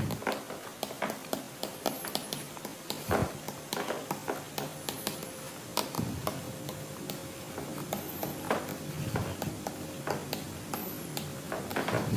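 Writing by hand: a pen or marker scratching and tapping irregularly on the writing surface, in short strokes several times a second.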